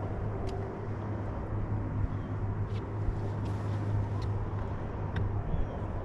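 Steady low motor hum on a fishing boat, with a few light clicks over it.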